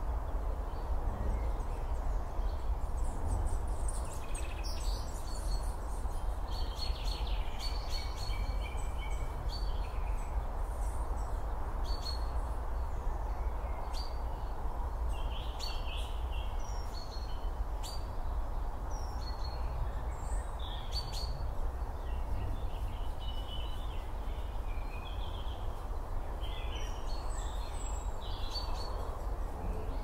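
Forest ambience: a steady low rumble and hiss with many short bird calls and chirps scattered throughout.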